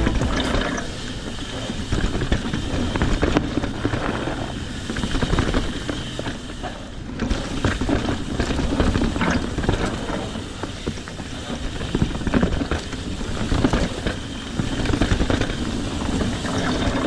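Trek Fuel EX 7 mountain bike riding down a snowy trail: an uneven rumble of tyres on the rough ground, with frequent knocks and rattles from the bike over bumps.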